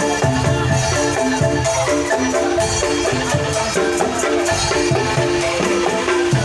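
Angklung ensemble playing a melody: bamboo rattles shaken in quick tuned notes, over a steady low beat.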